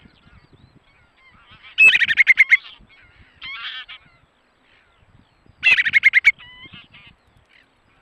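Whimbrel giving its rippling seven-note whistle: a quick run of about seven clear, evenly spaced notes, heard twice about four seconds apart, with a shorter, softer call between them.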